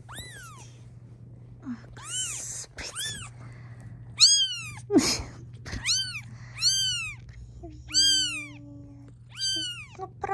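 Newborn British shorthair kitten mewing over and over: about ten short, high cries, each rising and falling in pitch.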